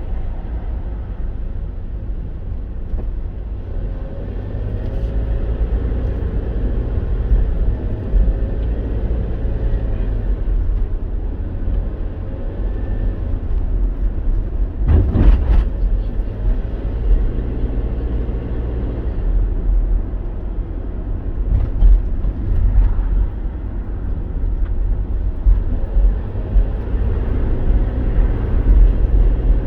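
Moving road vehicle heard from inside: a steady low engine and road rumble, with the engine note rising and falling as it drives. A loud sharp knock cuts through about halfway.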